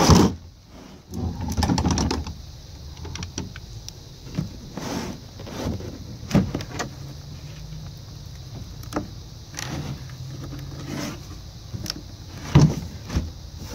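Plastic ice chest being handled: scattered knocks and clicks of the lid and body, with a sharp knock at the start and another near the end.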